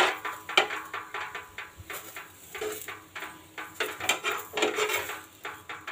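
Metal spatula scraping and clinking against a tawa griddle as a methi paratha is pressed and turned on it: a string of irregular clicks and scrapes, the sharpest right at the start.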